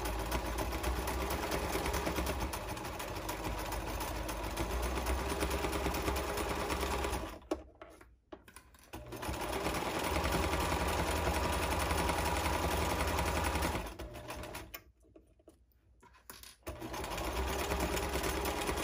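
Electric sewing machine stitching a hem through heavyweight fabric, running in steady stretches. It stops twice, for about two seconds each time, then starts sewing again.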